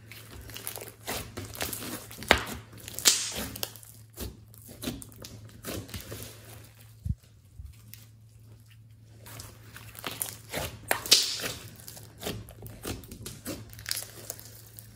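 Hands stretching, folding and poking a thick slime: irregular sticky crackles, pops and squelches as the slime pulls apart and is pressed. The crackling comes in two busy stretches, with a quieter gap in the middle.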